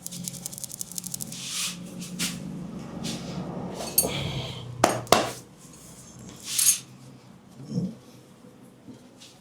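Hands working over a head and neck in a massage. A quick patter of light taps comes first, then rubbing strokes and a few sharp cracks or clicks about four to five seconds in.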